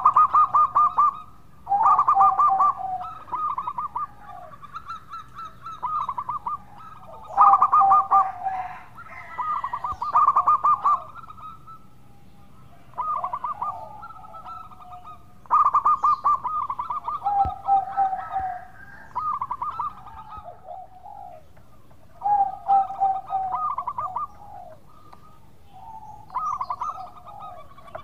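Zebra dove (perkutut) in full song: short phrases of fast, stuttering cooing notes, repeated every one to three seconds with brief pauses between.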